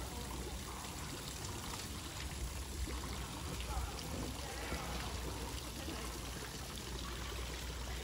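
Steady rush of running water from a stream or small waterfall, with a low rumble underneath.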